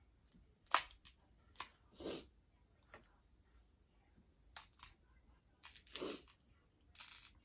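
Close-up eating sounds from a seafood boil: a few sharp clicks and crunches of shell, and short bursts of chewing and lip smacking, spread out at irregular intervals.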